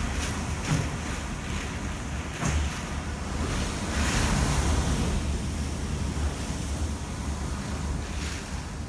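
Hurricane-force wind and rain, with gusts buffeting the microphone as a low rumble. A stronger gust swells about four seconds in.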